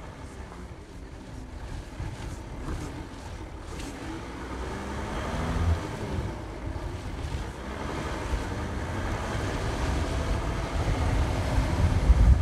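Audi car engine pulling slowly up a rough grassy off-road track, its note growing louder and rising and falling as the driver works the throttle, with wind buffeting the microphone.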